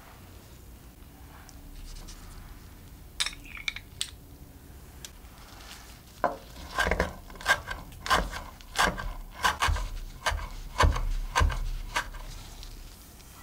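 Kitchen knife chopping fresh dill on a wooden cutting board: a run of about a dozen sharp strikes, roughly two a second, starting about halfway through, after a few light clicks.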